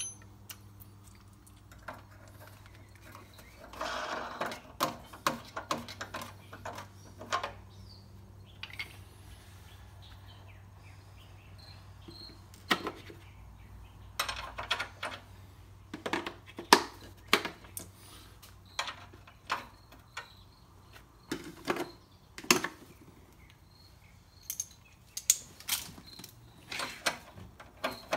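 Irregular clicks, taps and knocks of hands and small tools working loose a motorcycle's front fender and its brake-line and speedometer-cable brackets, in scattered clusters over a faint steady low hum.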